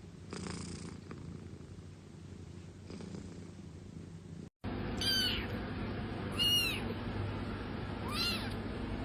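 Cat purring steadily. After an abrupt cut about four and a half seconds in, three short high-pitched mews, each rising and falling in pitch, sound over a low steady hum.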